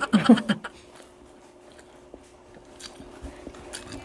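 A short bit of voice, then faint chewing and scattered small clicks of people eating crispy pork head.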